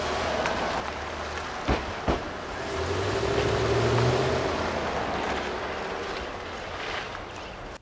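Chevrolet Suburban SUV's engine running as it pulls away and drives off, the engine note rising about three to four seconds in. Two sharp thumps sound about two seconds in.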